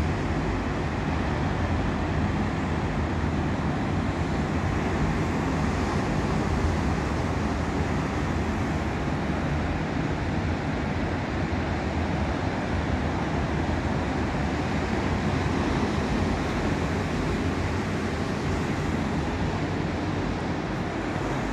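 Ocean surf breaking on the shore below, heard from high above as a steady, even wash with no single wave standing out.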